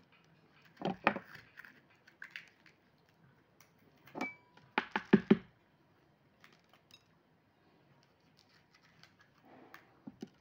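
Scattered knocks and clicks of hands working long green chili peppers on a cutting board as the peppers are slit and deseeded. A quick run of sharp knocks about five seconds in is the loudest moment.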